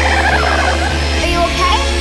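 12-bit jungle techno track playing: a deep sustained bass under a synth or sampled line that glides down in pitch, with few drum hits.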